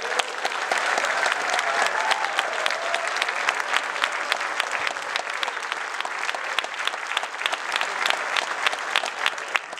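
An audience of several hundred applauding steadily, with a few voices calling out near the start.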